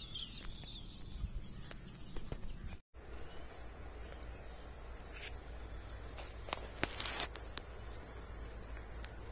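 Outdoor ambience with a steady high-pitched insect drone; the audio drops out briefly about three seconds in, and a short burst of clicks and rustling comes around seven seconds in.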